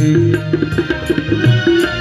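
Devotional music in an instrumental passage without singing: sustained melody notes over steady hand-drum strikes.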